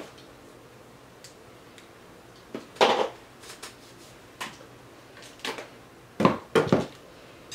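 Light handling noises: a scatter of short knocks and rustles, like dishes or containers being moved about, with a cluster of them about a third of the way in and another near the end.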